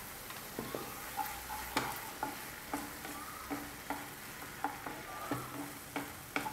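Wooden spatula stirring and scraping a frying filling with tomato puree in a nonstick frying pan, over a steady sizzle, with about two scraping strokes a second.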